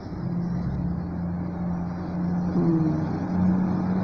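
A steady low motor hum over background noise, growing a little louder about halfway through.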